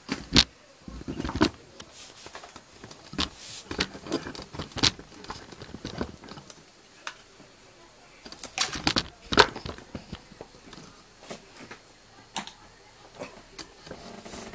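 Irregular clicks and knocks of hands handling the recording phone and the things around it, with a few louder knocks near the start and a cluster around the middle.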